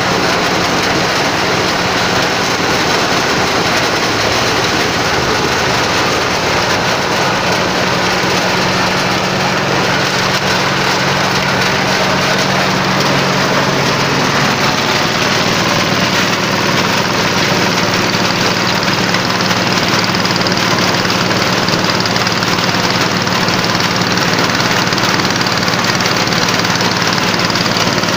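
Engine-driven corn sheller running steadily: a motor's steady drone under a dense mechanical clatter and rush. The engine note shifts slightly about halfway through.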